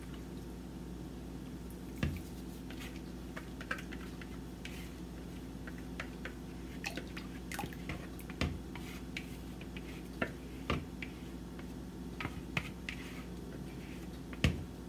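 Goat milk lye solution poured from a plastic bowl into oils in a plastic tub, trickling and dripping with scattered soft plops and clicks over a steady low hum.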